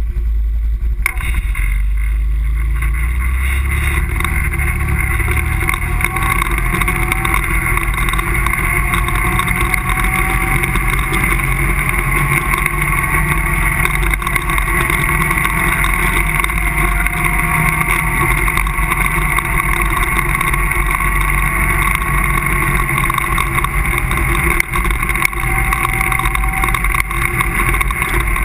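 ATV engine running as the quad pulls away and rides along a dirt trail, its note picking up about a second in and then holding fairly steady, with a constant low rumble underneath.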